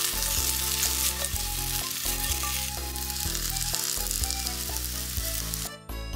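Starch-coated burdock root sticks sizzling as they fry in very little oil in a frying pan, the pan shaken now and then. The sizzle stops abruptly about six seconds in, leaving background music.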